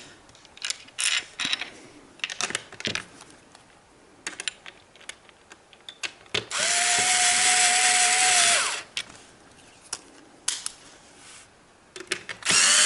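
A handheld power driver runs for about two seconds, driving a screw into the piano stand's side panel, with a steady motor whine. It starts again briefly near the end. Before that there are scattered clicks and knocks as the screws and panels are handled.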